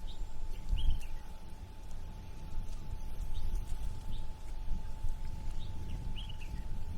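Short bird chirps, roughly one a second, over a low, uneven rumble of harbour waves and city noise, with a faint steady hum underneath.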